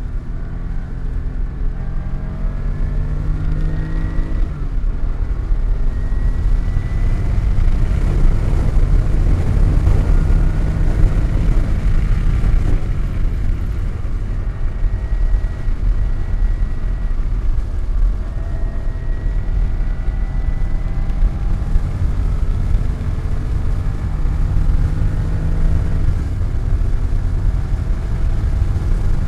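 Car engine under hard acceleration on a race track. The engine note climbs and drops back again and again as it goes up through the gears and lifts off, over a heavy low rumble.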